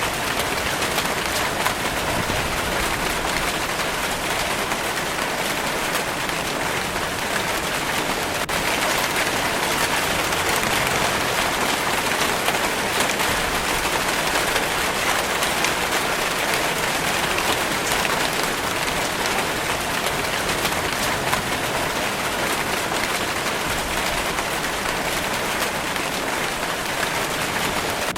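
Steady rainfall pattering on a surface, an even hiss with fine crackling drops and no lulls.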